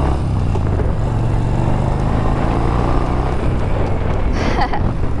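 Yamaha Bolt's air-cooled V-twin engine running steadily while riding, with wind noise.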